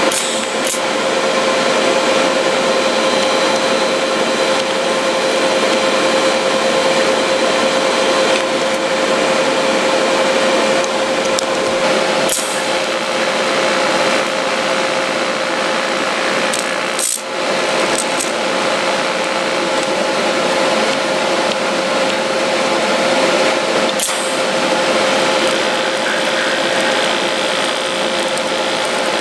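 TIG welding arc on steel from a Primeweld TIG 225x: a steady buzzing hiss with a constant hum tone running through it, broken by a few brief interruptions.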